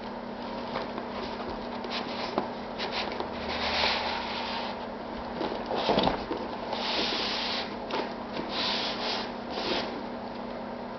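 Cardboard packaging of a die-cast model crane being handled and opened: irregular rustling and scraping with a few sharp clicks, and a louder knock about six seconds in.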